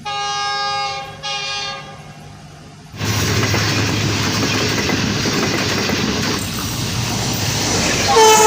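Passenger train's locomotive horn sounding two blasts, a long one then a shorter one. About three seconds in, loud rushing and rattling of a train passing at speed takes over, and the horn sounds briefly again near the end.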